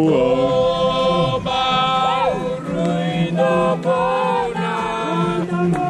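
A group of voices singing a Fijian welcome song for visitors together, with held notes in several parts.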